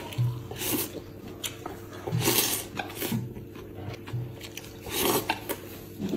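A man slurping wide belt noodles and chewing: several short, noisy slurps, the longest about two seconds in and another near the five-second mark, with small wet mouth clicks and smacks between them.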